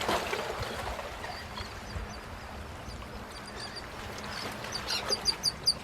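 A small bird chirping in short high notes, with a quick run of chirps near the end, over a steady low rushing outdoor noise.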